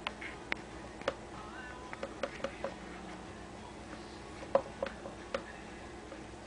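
Irregular light clicks and taps as baby box turtles' shells and claws knock against a plastic food dish, about a dozen in all, the loudest about four and a half seconds in.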